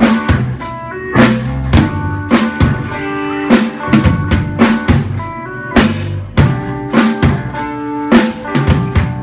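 Music with a prominent drum kit, kick, snare and rimshot hits over sustained pitched notes, played loud through a sound system under test.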